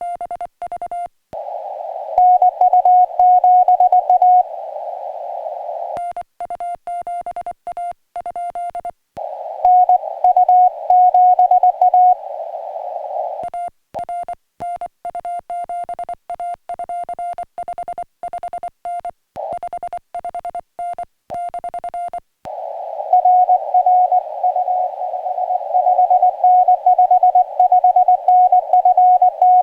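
Morse code (CW) from a portable ham radio transceiver: a single tone near 700 Hz keyed in rapid dots and dashes. Stretches with silent gaps alternate with stretches heard over a narrow hiss of band noise, the back-and-forth of a CW contact.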